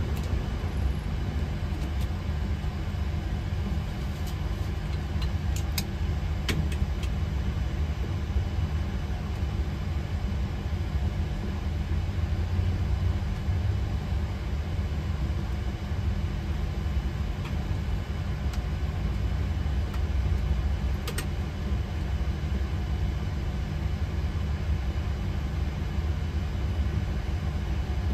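Steady low rumble of a Boeing 737-800 on the ground, heard from inside the cockpit, with a few faint clicks.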